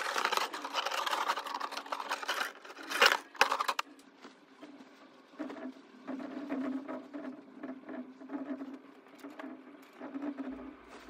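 A bundle of thin clothes hangers clattering and clothes rustling as they are gathered up, for about three and a half seconds, loudest around the third second. After that a quieter steady low hum runs, with small ticks over it.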